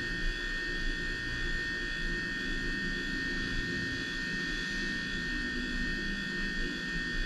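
Steady background hum and hiss with a faint high whine, unchanging throughout: machine-like room noise with no other sound.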